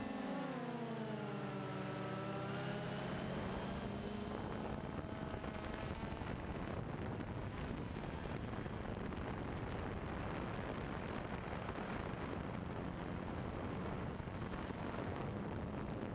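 Camera drone's propellers buzzing, their pitch falling over the first few seconds, then giving way to a steady rushing noise.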